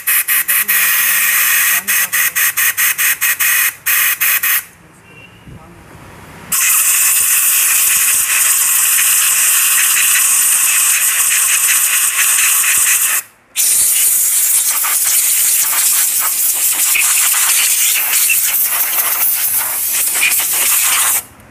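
Compressed air hissing from an air-gun nozzle into the drain hole of a Royal Enfield engine's spark-plug well, blowing out water trapped there because the hole was blocked. It comes in quick short blasts at first, stops for about two seconds, then blows in long steady blasts with one brief break.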